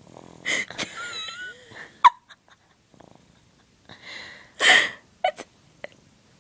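Snoring during sleep. A noisy, wheezy breath carries a wavering whistle through its first couple of seconds and ends in a sharp click. A second, stronger breath comes about four and a half seconds in, followed by a few short snorts.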